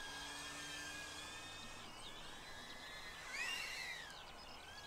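DJI Avata FPV drone whining faintly in flight, its motor pitch wavering with the throttle, with one brief rise and fall in pitch a little over three seconds in.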